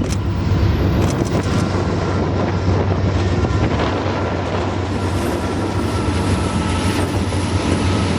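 Freight train of empty intermodal flatcars rolling past: a steady rumble of wheels on rail, with a few clicks about a second in and a faint, thin steady tone above.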